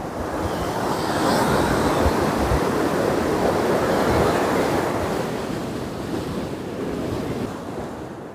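A wave washing in and draining back, a rushing noise that swells over the first second or so and eases off after about five seconds, with wind buffeting the microphone.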